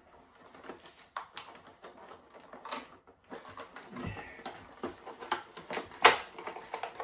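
Irregular clicks, taps and crinkles of a hot sauce bottle being handled and pried at in its packaging, held in by plastic sheeting, with a sharp knock about six seconds in.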